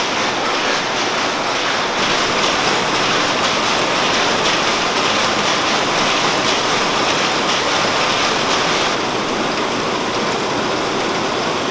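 Rows of silk-reeling machines running, their spools winding thread off cocoons: a loud, dense, steady mechanical noise with no distinct rhythm.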